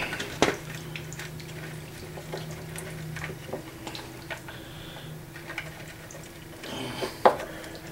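Small metal clicks and taps as screws are set by hand into the air silencer cover on an outboard's carburetor. There is a sharper click about half a second in and another near the end, over a steady low hum.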